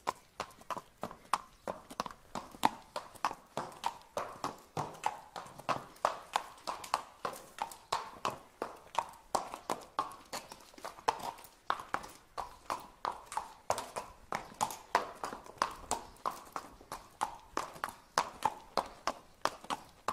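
Horses' hooves clip-clopping on a paved street at a walk, a steady run of about three to four hoof strikes a second.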